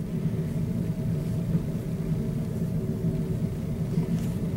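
Steady low mechanical hum and rumble, with a few constant tones in it, like a fan or ventilation unit running.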